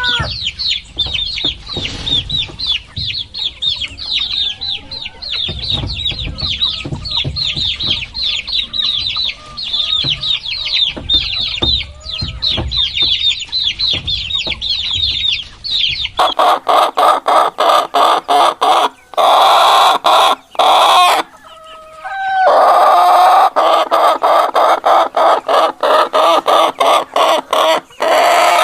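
Many chicks peeping rapidly and continuously in high, short calls. About sixteen seconds in, this changes abruptly to hens clucking loudly in fast repeated calls, with a brief gap just before the last part.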